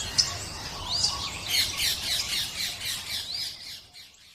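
A flock of small aviary birds chattering and squawking all at once, with a couple of high rising-and-falling whistles among the calls. The sound fades out near the end.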